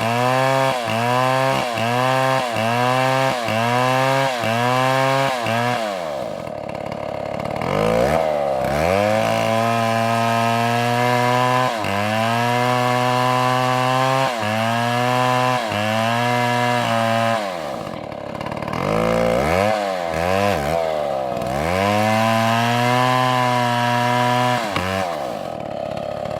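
Two-stroke chainsaw running at high revs, its pitch dipping about one and a half times a second for the first few seconds. It drops to idle around six seconds in, revs back up and holds steady, idles again about eighteen seconds in, then revs in quick blips and runs high once more before dropping back near the end.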